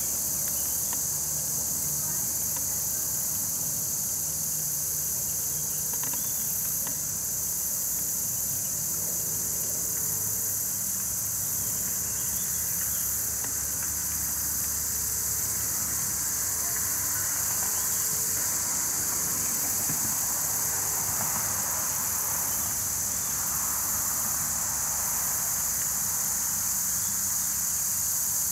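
Steady, high-pitched drone of a summer insect chorus, with a faint low hum underneath.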